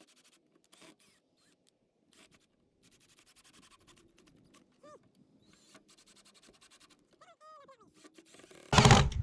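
Faint clicks and scrapes of handling, then near the end a sudden loud burst as a drill starts driving a 2½-inch screw into a 2x4.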